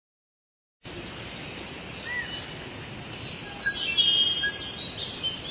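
Forest ambience: birds chirping and whistling over a steady hiss, starting just under a second in, with a fuller burst of trilling calls in the middle.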